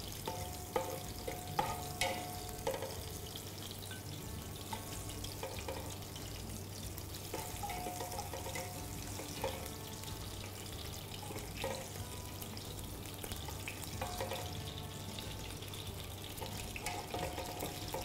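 Hot oil sizzling in a cooking pot, with scattered clinks and scrapes of a utensil against the pot as fried carrots and raisins are lifted out; the clinks come most often in the first few seconds.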